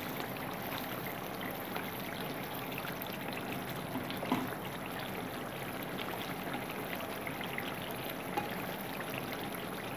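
Chicken curry simmering and sizzling steadily in a non-stick pan, its oil risen to the top of the gravy as the dish nears done, with a few light knocks of a wooden spatula stirring it.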